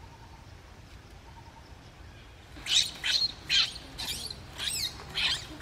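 Baby macaque screaming in distress as its mother grabs and drags it. The screams are a rapid series of short, high-pitched squeals, about two a second, starting about two and a half seconds in.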